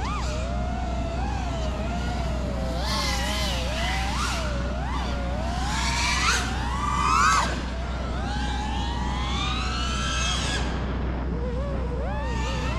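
Brushless motors of a Quadmula Siren F5 freestyle FPV quad whining in flight, the pitch swinging up and down with the throttle. The loudest moment is a steep rise in pitch about seven seconds in as the throttle is punched, then a sudden drop.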